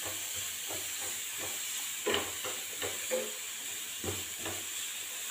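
Grated carrot sizzling in a nonstick frying pan as it is stirred with a wooden spatula, with irregular scrapes of the spatula across the pan. The carrot is being sautéed until its raw smell goes.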